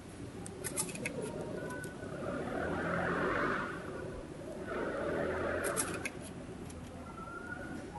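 Small clicks from the buttons of a Panasonic Lumix ZS20 compact camera as its menus are stepped through: a few clicks about a second in and more near the end. Two swells of rushing noise in the middle are louder than the clicks.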